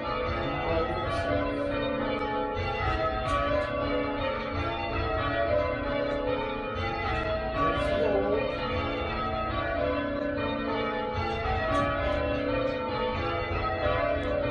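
Church tower bells being change-rung: an unbroken run of bell strikes, each note ringing on and overlapping the next, at an even level throughout.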